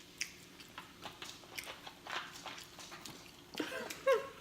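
Close-miked chewing and lip-smacking on pizza: a run of short, wet clicks, with a brief pitched sound that bends up and down near the end.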